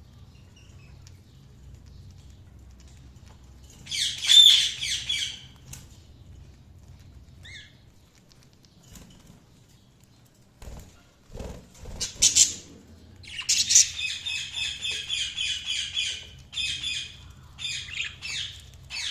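Budgerigars chirping in fast, high chatter: a short burst early, then a long, steady run of rapid chirps through the second half. A few low thumps come just before that run.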